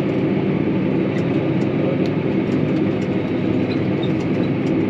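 Farm vehicle engine running steadily with a dense low rumble while hauling a load of manure.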